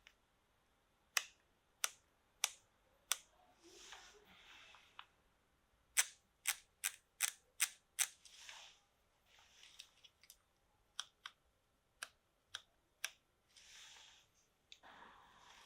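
Panasonic Lumix DMC-FZ2000 bridge camera's shutter clicking: single clicks every half second or so, a quick run of about six clicks in under two seconds, then more single clicks. Softer, longer hissing sounds come between the clicks.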